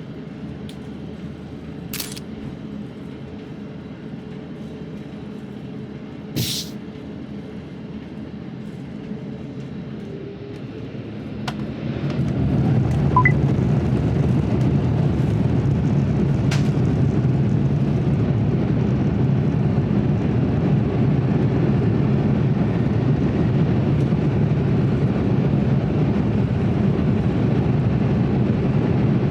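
Airbus A350-900 engines heard from inside the cabin. A steady low hum with two sharp clicks gives way, about eleven seconds in, to a rising whine as the engines spool up to takeoff thrust, followed by a loud, steady rumble of the takeoff roll.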